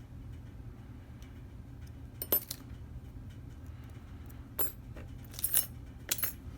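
Steel Allen wrenches clinking against one another and against metal as they are sorted through and tried for size, about six light metallic clinks over a low steady hum.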